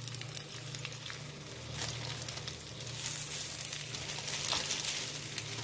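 Chicken seekh kababs sizzling in a little hot oil in a non-stick frying pan, with a fine crackle of many small pops that grows a little louder about three seconds in. A steady low hum runs underneath.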